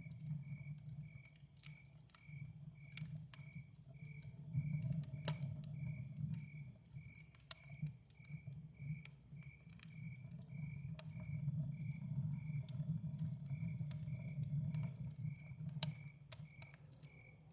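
Campfire crackling with scattered sharp pops over a low steady rumble, while a cricket chirps at an even pace, about twice a second.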